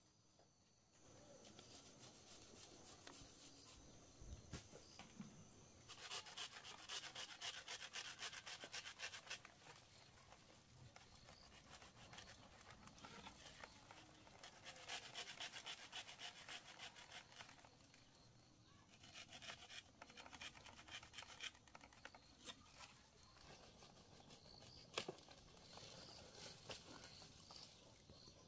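Faint, rapid scraping or rubbing strokes that come in four bursts of a few seconds each.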